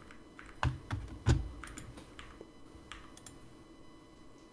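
Scattered computer keyboard keystrokes and clicks: three heavier taps with a dull thud in the first second and a half, then sparser, lighter clicks.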